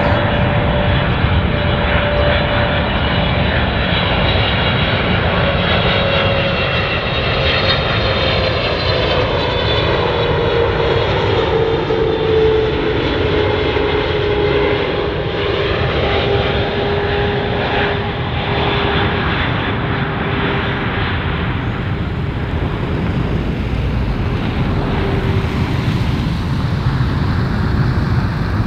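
Boeing 777-300ER's twin GE90-115B turbofans on landing approach, a loud steady jet noise. A fan tone in it slides down in pitch as the airliner passes overhead, partway through.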